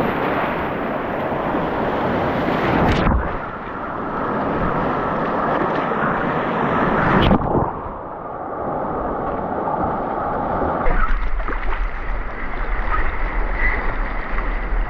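Rushing river whitewater and splashing on a small camera microphone, a dense noise that changes abruptly twice, with a steady low rumble joining about eleven seconds in.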